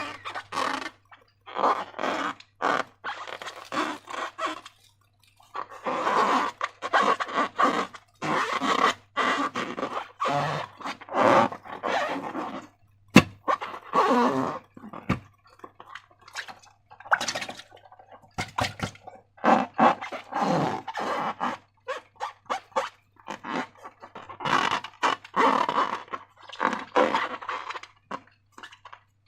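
Slime being squished and stretched by hand, in irregular wet squelching, crackling bursts with short pauses. There is one sharp click about halfway through, which is the loudest moment.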